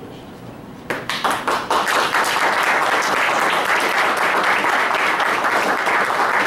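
A roomful of people applauding, breaking out suddenly about a second in and holding steady: many hands clapping at once.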